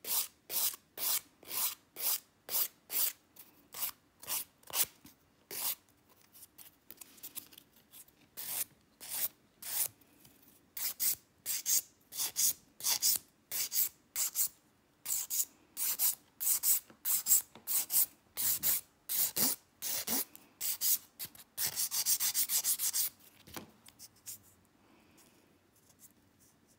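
Hand nail file being drawn back and forth over a cured gel and polygel nail with embedded glitter, filing down its bumps, about two strokes a second. A quick run of short strokes comes just before the filing stops near the end.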